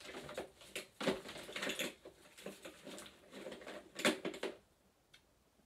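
Someone rummaging through makeup products by hand: plastic cases and tubes click, knock and rattle against each other, with sharper knocks about one second and four seconds in. It goes quiet shortly before the end.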